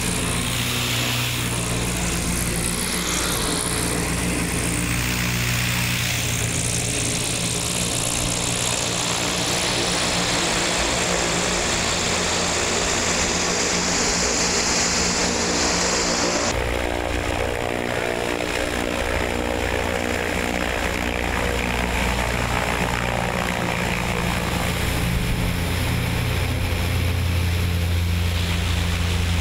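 Zeppelin NT airship's 200-hp propeller engines running steadily close overhead while the ship hovers at the ground. A high hiss cuts off about halfway through.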